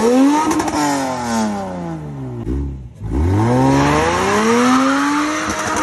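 Mazda RX-8's rotary engine revved up hard and let fall twice, in a handbrake burnout attempt on an oil-soaked road surface.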